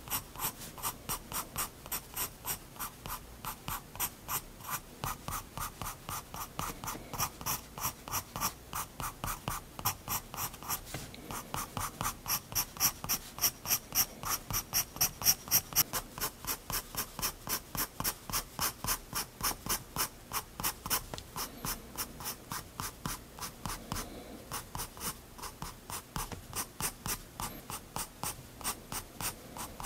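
Soft 7B graphite pencil (Prismacolor Turquoise) scratching on sketchbook paper in quick, short, even strokes, about four a second, hatching fine lines. The strokes grow louder a little under halfway through, then ease back.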